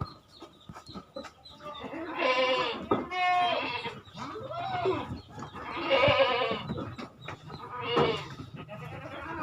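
Goats bleating: a run of loud, wavering calls, roughly one a second and sometimes overlapping, beginning about two seconds in.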